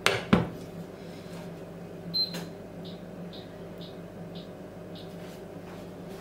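Stainless-steel saucepan set down on a glass induction hob with two sharp clacks, then the hob's touch controls beep: one sharp beep about two seconds in, followed by a run of softer short beeps about every half second as the power is set. A steady low hum runs underneath.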